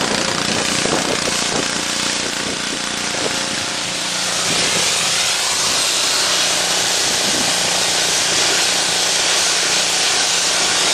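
Pressure washer blasting water against a fishing boat's painted bottom: a steady, loud hiss of spray with a steady hum under it, growing louder about four seconds in.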